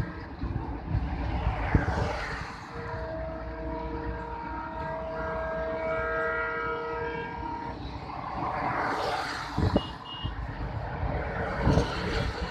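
WDP-4D diesel locomotive's horn sounding one steady blast of about five seconds, starting about three seconds in, over the low rumble of the moving train. Near the end a louder rush of noise with a couple of sharp knocks.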